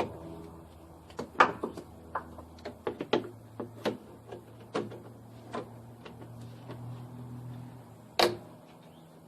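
Irregular clicks and clunks of hand tools and metal parts working a radiator hose and its spring clip loose, with one louder knock near the end. A faint low hum runs underneath.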